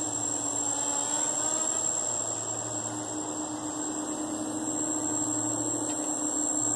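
QAV250 quadcopter's four Emax MT2204 brushless motors spinning 5040 bullnose propellers, buzzing steadily in flight with the pitch wavering slightly, over a constant high-pitched whine.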